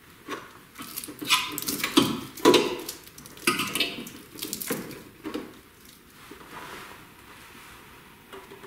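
Plastic wiring-harness connectors and loom being handled on an engine's intake manifold: a quick run of clicks, taps and rustles, busiest in the first half, then fading to faint fiddling.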